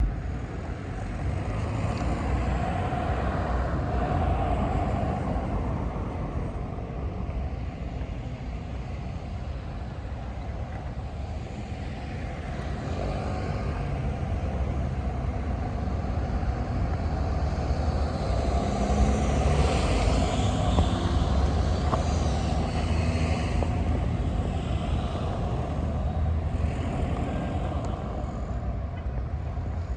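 Street ambience dominated by the low rumble of motor traffic, swelling as vehicles pass a few seconds in and again about two-thirds of the way through.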